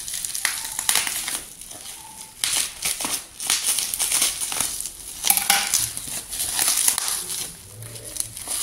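Plastic bubble-wrap packaging crinkling and rustling in irregular bursts as it is handled.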